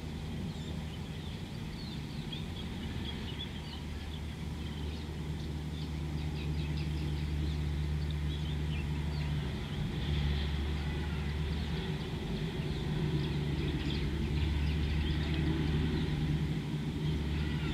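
Many birds chirping in quick short notes over a steady low mechanical hum that slowly grows louder.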